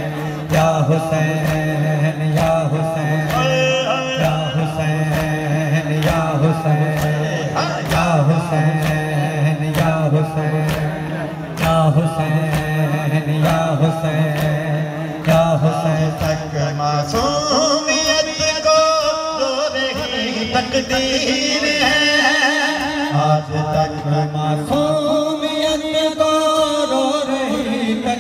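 A noha lament sung live by a male reciter through a loudspeaker system, with men's voices joining. Sharp regular strikes of chest-beating (matam) keep a steady beat under the singing, over a low held drone that drops out about two-thirds of the way through and returns briefly near the end.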